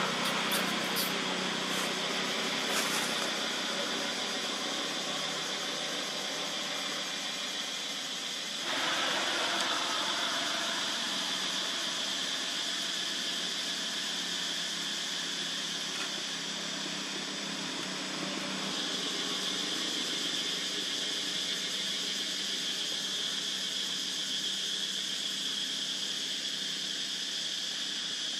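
Steady high drone of insects with a hiss of outdoor background noise; the mix shifts abruptly about nine seconds in. A few faint clicks come in the first seconds.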